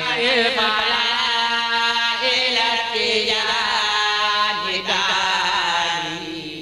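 A voice chanting an Arabic devotional praise poem, drawing out long ornamented notes with wavering pitch that fade away near the end.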